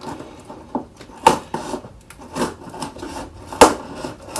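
Hands handling the packaging and parts of a new LED light bar: four short, sharp scraping sounds about a second apart, with quiet between them.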